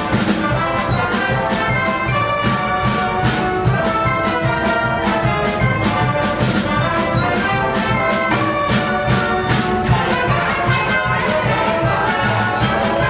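School pit orchestra playing an upbeat show tune over a steady rhythmic beat.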